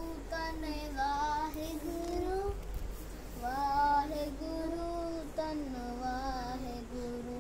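A young child singing a slow devotional hymn, in phrases of long held notes that glide and waver in pitch.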